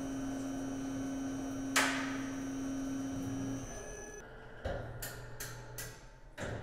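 Tormach 15L Slant Pro CNC lathe parting off bar stock under coolant: the spindle runs with a steady hum, a sharp metallic clank rings out about two seconds in, and the spindle stops a little past halfway. A string of short clicks and knocks follows as the turret moves.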